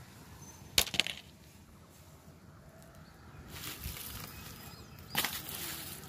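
Dry palm bark and leaves rustling and crackling as they are stirred, with two sharp snaps about a second in.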